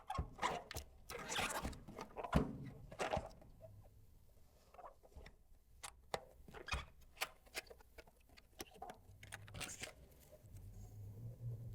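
Close-miked handling of a product's packaging during an unboxing: irregular rustles, taps and clicks, with a faint low hum starting near the end.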